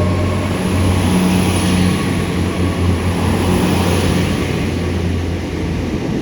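Great Western Railway train running at the platform: a loud, steady low engine hum with a faint high whine over it.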